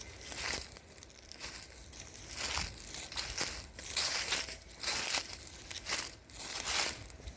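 Footsteps through dry fallen leaves, each step a crunching, crackling rustle, coming about once or twice a second at an uneven pace.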